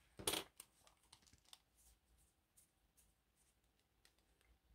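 Plastic friction-pen barrels and caps handled by hand: a brief scrape or rustle about a quarter second in, then faint small clicks and taps as the pen is worked apart.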